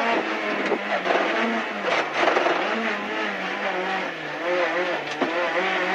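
Rally car's engine heard from inside the cockpit. The revs drop sharply at the start, then rise and fall at lower speed, with a few sharp knocks.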